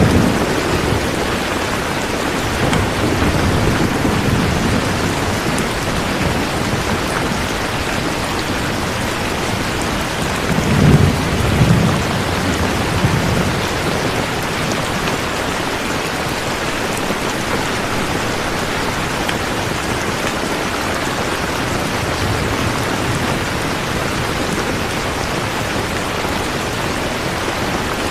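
Steady heavy rain with rolls of thunder: low rumbles swell near the start, again a few seconds in, and most strongly about eleven seconds in.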